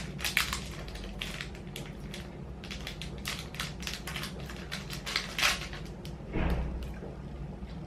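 Crinkling and tearing of a plastic snack packet being opened by hand, in many quick crackles. About six seconds in, a short sniff as the opened packet is smelled.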